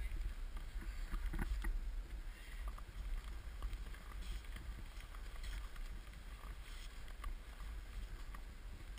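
Low, steady wind rumble on a small action camera's microphone, with scattered faint crunches and clicks.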